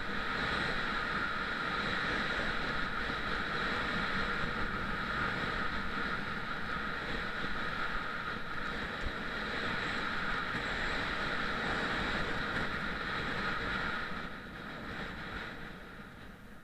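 Skis running over groomed piste snow with wind rushing past the microphone: a steady rushing hiss that eases off about fourteen seconds in.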